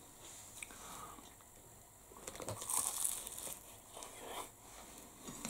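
Flaky, buttery sausage roll pastry crackling and crunching as the roll is broken and eaten. The crackle comes in around the middle and again a little later, after a quiet start.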